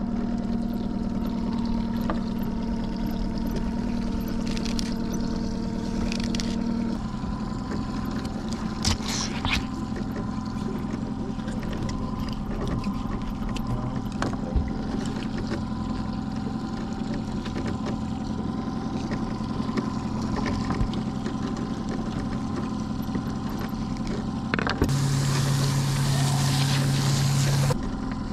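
Boat's outboard motor running steadily with an even hum, which shifts pitch about seven seconds in. Near the end a louder hiss comes in for about three seconds and stops suddenly.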